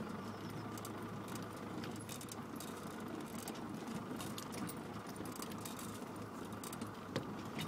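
Land Rover Discovery Mk1 heard from inside the cabin, crawling over a bumpy grass track: a steady low engine hum under constant light rattling and jangling of loose things in the cab.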